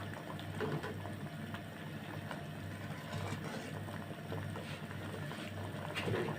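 Thick tamarind syrup bubbling as it boils down in a pot on the stove, with scattered light clicks of a strainer skimming foam off the top.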